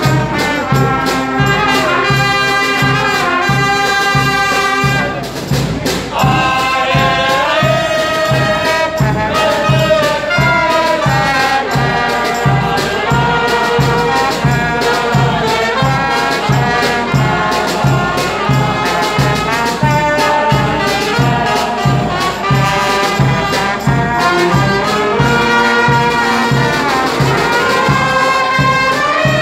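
Street brass band of saxophones, trumpets, trombones and a sousaphone playing a tune over a steady beat, with a brief dip in the music about five seconds in.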